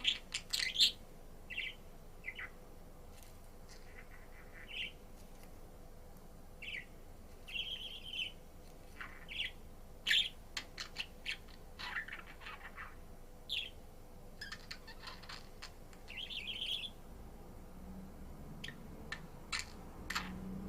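Budgerigar chirping in short, scattered calls and sharp clicks, with brief pauses between bursts.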